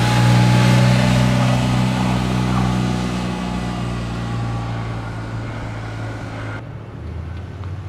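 A motor vehicle's engine running close by with a steady low hum and road noise, fading gradually as it moves off. About two-thirds of the way through, the higher sounds drop away abruptly, leaving a faint low rumble.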